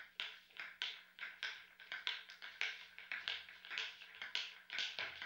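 Quiet percussion intro: soft, short scraping or shaking strikes, about four a second in an uneven pattern, before the full music comes in.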